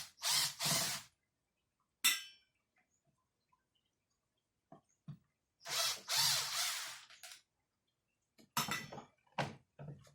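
Hand-tool work on a brush cutter being taken apart: scattered clicks and knocks of tools and metal parts, with two longer noisy passes, one just after the start and a longer one about six seconds in.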